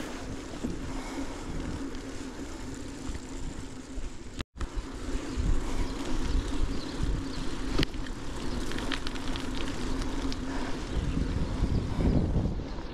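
Riding noise from a gravel bike: wind buffeting the action-camera microphone over the rumble of the tyres rolling, with the sound cutting out for an instant about four and a half seconds in.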